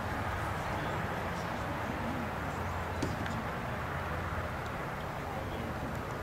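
Steady ballpark background noise from the stands, with faint distant voices and one faint click about three seconds in.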